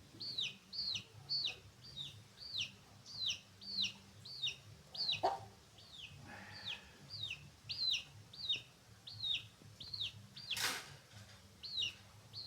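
Free-range chickens calling: a steady run of short, high, falling peeps, about two a second. A sharp knock comes about five seconds in and a louder one near the end.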